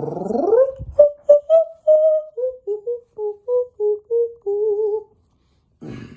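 A singer's vocal warm-up: the voice slides up in one long rising glide, then sings a run of short, separate notes that step lower in pitch, ending on a held note with vibrato.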